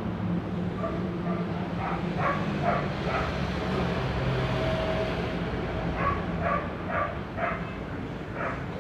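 A dog barking in quick runs of short barks, about two or three a second, over a steady low hum.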